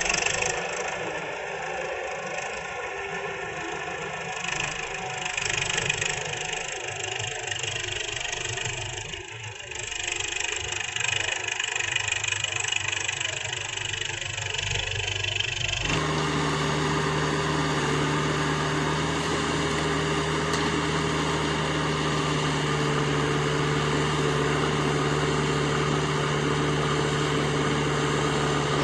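Diesel engines of a JCB 3DX backhoe loader and a Mahindra tractor running while earth is loaded and hauled. A little past halfway the sound switches abruptly to a steady, even engine drone.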